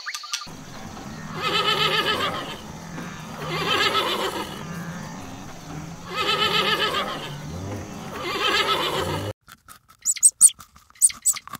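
A horse whinnying four times, about two seconds apart, each call quavering in pitch. Near the end come short crisp clicks of a rabbit chewing grass.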